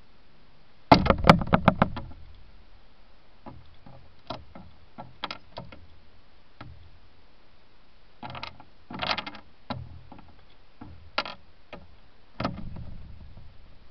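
Eurasian magpie on a glass-topped garden table: a burst of knocks and clatter about a second in as it lands, then scattered sharp taps of its beak on peanuts and glass, another cluster of taps a few seconds later and a thump near the end.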